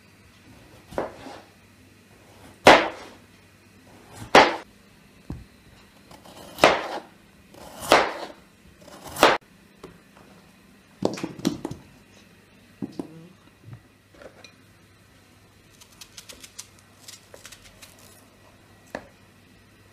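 Kitchen knife slicing through raw potatoes on a wooden cutting board, each cut ending in a sharp knock of the blade on the board, about eight cuts one to two seconds apart. Near the end come lighter, quicker clicks and taps of the knife.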